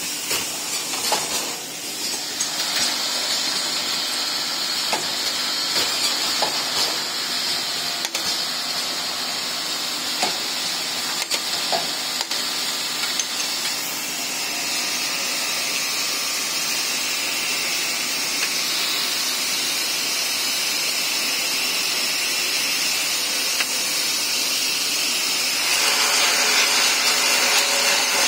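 Automatic screw-capping machine for glass bottles running: a steady hissing, whirring machine noise with a few light clicks in the first dozen seconds. It grows louder and fuller near the end.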